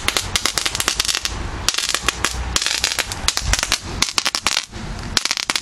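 Universal 'Rub It Crackle' friction novelty firework being rubbed, giving off a rapid, irregular string of small sharp pops and crackles with a scraping hiss between them, as its phosphorus-based mix ignites under friction.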